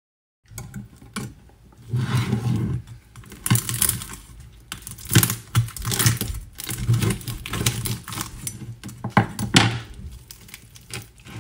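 Knife crunching through the crackling-crisp skin of an air-fried pork leg on a wooden chopping board, then hands tearing the crisp skin apart: an uneven run of crunches, crackles and sharp knocks, starting about half a second in.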